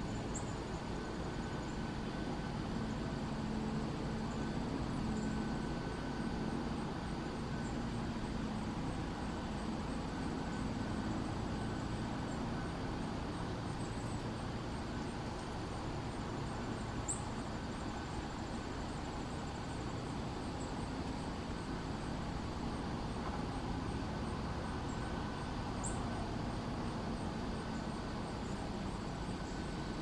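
Steady outdoor ambience: a low, even rumble with a faint high insect trill pulsing rapidly over it. Three short, sharp high bird chips stand out: one at the start, one about halfway through and one near the end.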